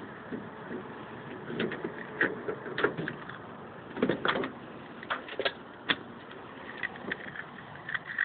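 IDI (indirect-injection) diesel engine running just after a cold start, a steady engine noise broken by irregular sharp knocks.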